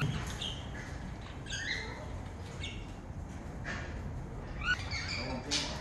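Parrots in an aviary giving a string of short, high squawks and chirps, several of them sliding down in pitch.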